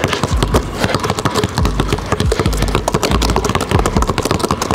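Two basketballs dribbled low and fast on a hardwood gym floor: a rapid, uneven run of ball bounces, several a second, with no break.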